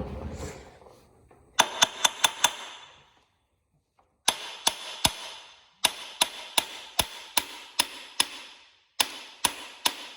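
Hammer tapping on a metal bolt in four quick runs of strikes, each strike ringing briefly. The bolt is being driven loose.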